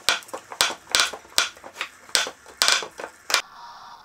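A quick, uneven run of about a dozen sharp metallic clicks and knocks, stopping about three and a half seconds in.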